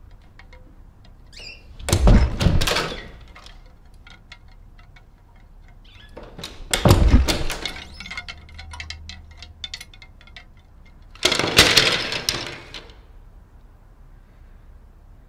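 Metal-hooked clothes hangers clattering and jangling on a closet rod in three bursts of about a second each, with scattered small clicks between them.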